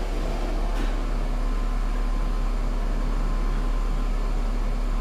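Fiat car idling, heard from inside the cabin: a steady low hum, with one short click about a second in.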